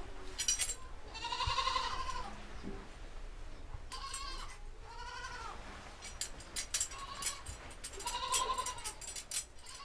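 A goat bleating several times, each a short wavering call. A run of sharp, irregular clicks or taps comes in the second half.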